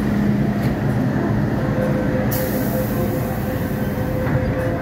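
MTR M-Train electric multiple unit running along a station platform: a steady loud rumble, with a thin whine setting in about two seconds in and a high hiss for a couple of seconds around the middle.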